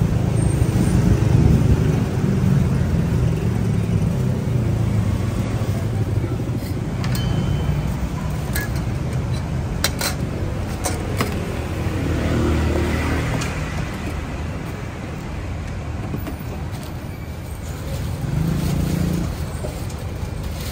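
Road traffic: the engines of passing cars and motorbikes run continuously, loudest near the start and again briefly near the end. A few sharp clicks sound about eight to eleven seconds in.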